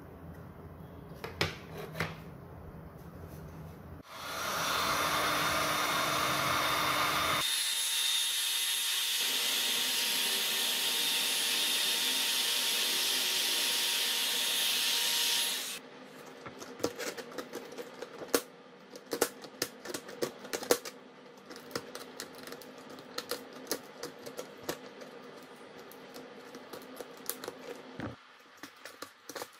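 A few handling clicks, then a heat gun switches on about four seconds in and blows steadily for about eleven seconds, its tone shifting once, before cutting off suddenly. After it, a run of irregular sharp clicks and scratches as the cracked glass back of an iPhone XS Max is picked and scraped off in pieces.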